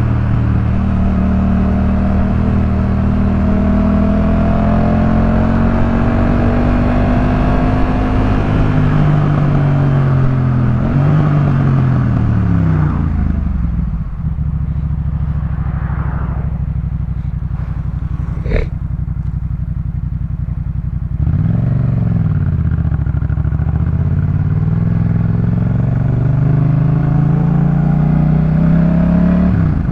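Yamaha MT-07 parallel-twin engine through a Jeskap K4 full exhaust system, ridden under way. The revs fall off as the bike slows, and the engine sits low and steady for several seconds with one sharp click in the middle. Then the revs climb again as it pulls away, with brief dips at the gear changes.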